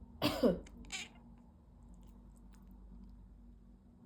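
A cat's short meow, falling in pitch, given in reaction to a person coughing, followed about a second in by a shorter, fainter sound.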